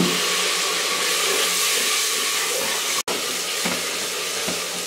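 Onion-tomato masala hissing and sizzling in hot oil in an aluminium pot as water is added, with a wooden spoon stirring it through the spices. A steady hiss, broken for an instant about three seconds in.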